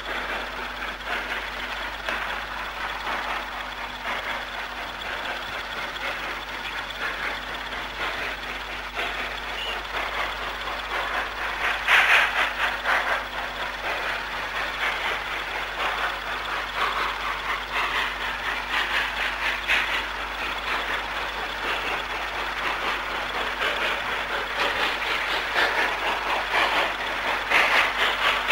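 TCDD steam locomotive working a freight train, its exhaust beating rapidly and continuously under a steady hiss, swelling louder about twelve seconds in and again near the end.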